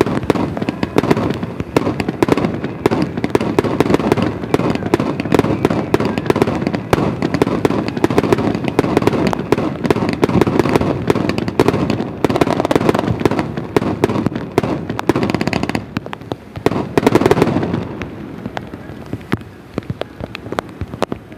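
Aerial fireworks: a dense, unbroken barrage of shell bursts and crackling that thins to scattered pops near the end.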